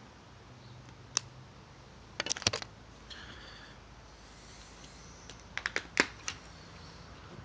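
Small sharp plastic clicks and taps from handling a Samsung Galaxy S3 with its back cover off while a SIM card is fitted. One click comes about a second in, a quick run of clicks at about two and a half seconds, and another run near six seconds.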